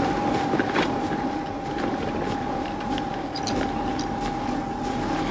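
Electric bike motor whining steadily at full assist while climbing a steep path, working hard under load, with light clicks and rattles from the bike over the ride.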